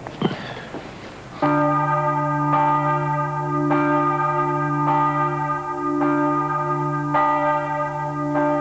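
Church bell tolling, struck about once a second and ringing on between strokes, starting about one and a half seconds in.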